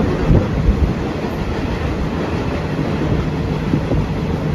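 Passenger train running along the track, heard from on board: a steady low rumble with wheel clatter and a few knocks in the first second.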